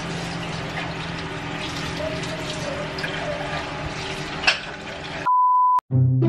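Steady hiss of chicken frying in hot oil in a pot on the stove, with faint voices behind it. About five seconds in it breaks off for a short, steady electronic beep, and music starts right at the end.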